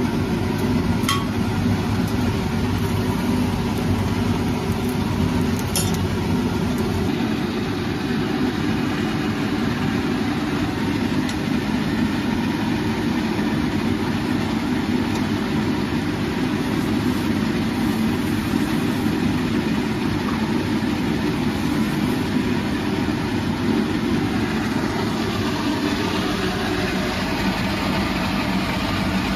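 Coal forge's air blower running with a steady low drone as it blows the fire. Two faint clicks come about a second and about six seconds in.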